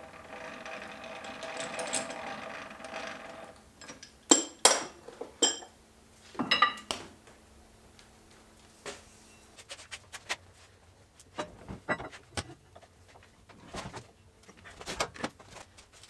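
Metal-on-metal handling of a freshly machined sawmill blade adapter as it is worked off a steel bar held in a lathe chuck. A steady scraping ring lasts about three seconds, then come sharp clanks and scattered clicks.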